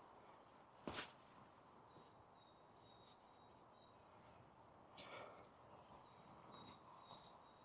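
Faint birdsong: a songbird repeats short, high notes over a near-silent background, with a single sharp knock about a second in.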